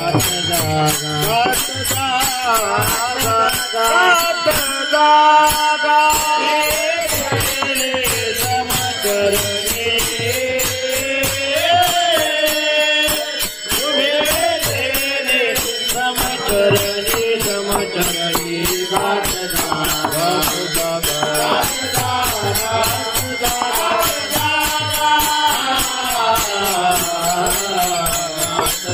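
Group devotional singing of a Marathi Varkari bhajan in call-and-response style, over small brass hand cymbals (taal) clashing in a steady rhythm and a mridang barrel drum played by hand.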